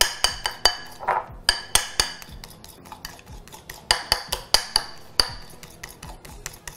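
A metal whisk clinking against the sides of a bowl while stirring a powdered-sugar and lemon-juice glaze. The clinks are irregular and each rings briefly, with a short lull about two and a half seconds in.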